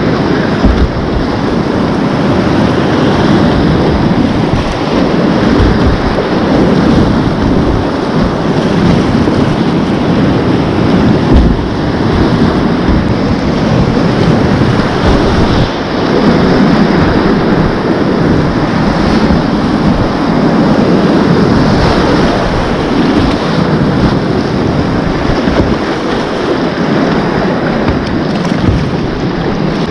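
Whitewater kayak running a river rapid: loud, steady rush of churning rapids with paddle-stroke splashes close by. A couple of brief low thumps sound, one near the start and one about eleven seconds in.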